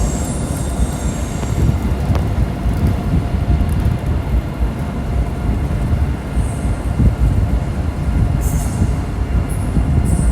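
Electric high-speed train running along the track at close range: a loud, steady rumble, with brief high-pitched squeaks a few times.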